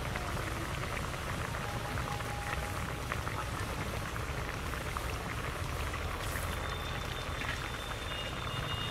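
Mustard-and-green-chilli gravy boiling steadily in an aluminium pot over a wood fire, a continuous bubbling with many small pops, as whole bata fish are lowered into it.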